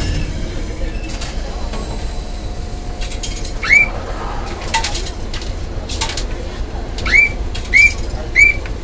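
A bird giving four short calls, each sweeping up in pitch and ending on a brief level note. One comes a few seconds in and three follow about half a second apart near the end, over the low steady hum of the tram standing at the platform.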